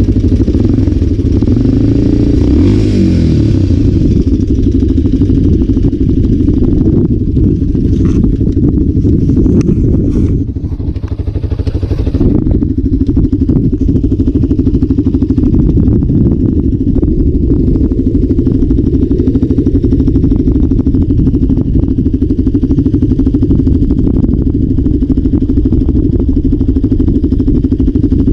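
Motorcycle engine running steadily as the bike is ridden, easing off briefly about ten seconds in before picking up again.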